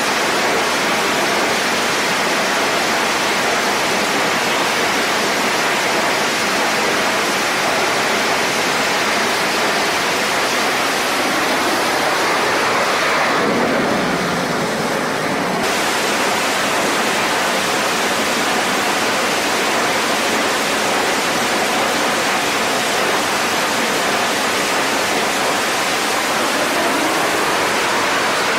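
Loud, steady jet engine noise from F/A-18 Super Hornets at launch power on a carrier catapult. About 13 seconds in, a downward sweep in pitch passes as one jet goes by, and near the end a rising sweep builds as another approaches.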